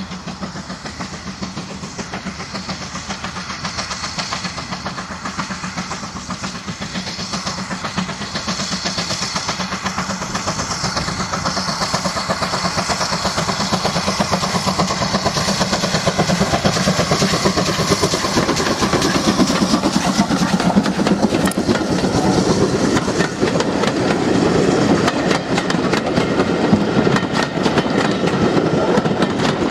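Steam tank locomotive hauling passenger coaches, its exhaust chuffing in a fast, even rhythm and growing steadily louder as the train approaches. Near the end the coaches pass close, their wheels clattering over the track.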